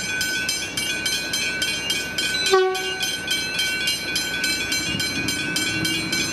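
Hybrid level crossing bells ringing rapidly and steadily, about four strikes a second, while the crossing is active. About two and a half seconds in comes a short horn toot, lasting about half a second, from the approaching train.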